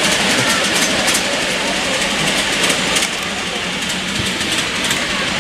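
Miniature railway train running along the track, its wheels clicking now and then over the rail joints under a steady rumble, with people talking.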